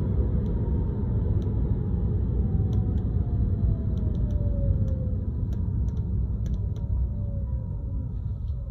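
Cabin noise of a Tesla Model 3 on the move: steady low road rumble with faint tones slowly falling in pitch, and irregular sharp clicks from a rattle in the car.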